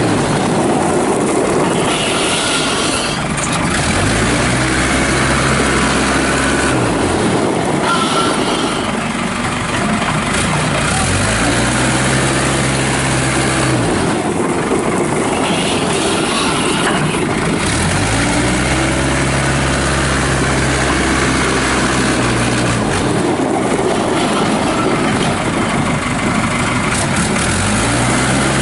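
Case 580 Super E backhoe loader's diesel engine running under changing load, its pitch sagging and climbing back every few seconds as the machine is worked.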